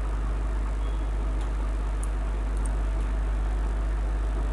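Steady low electrical mains hum with a faint buzz, with a few faint light ticks.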